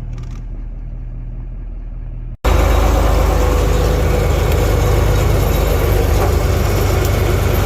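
A heavy engine running steadily at a moderate level. About two and a half seconds in, it cuts off abruptly and is replaced by a much louder engine running steadily close by.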